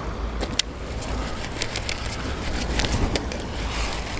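Wind buffeting the microphone as a steady low rumble, with scattered light clicks from a KastKing Speed Demon Pro baitcasting reel as it is handled and its crank turned.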